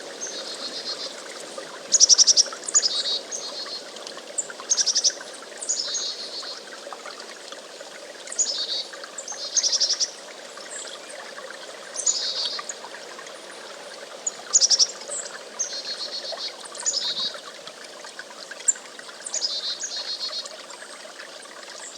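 Chickadee calling every two to three seconds: each call is a sharp high note or two followed by a quick run of buzzy, repeated notes, the chick-a-dee call. A steady background hiss runs underneath.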